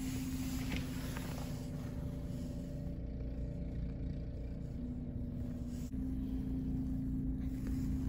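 A motor or engine running steadily, a hum over a low rumble; its pitch drops slightly about five seconds in and comes back up about a second later.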